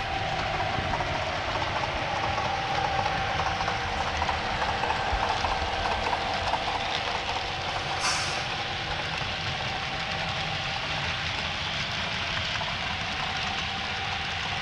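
Tsunami 2 sound decoder in an HO-scale GP9 model playing a diesel locomotive engine running steadily through the model's small speaker, with the model's wheels running on the rails. A brief hiss comes about eight seconds in.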